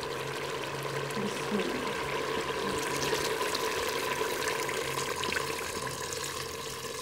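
Water pouring in a steady stream into a steel pot of chicken and tinda curry.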